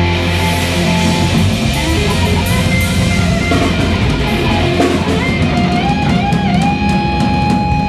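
A school band playing a rock cover on distorted electric guitars and drums. About five seconds in, a single high note slides up and is then held.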